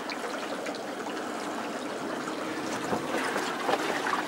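Water trickling and sloshing beside a boat hull, a steady wash with a few faint clicks, a little louder after about three seconds.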